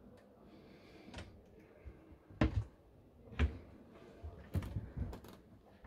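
Lift-up overhead locker doors on a motorhome's kitchen cabinets being handled and shut: a series of about six knocks and latch clicks, the loudest two about a second apart near the middle.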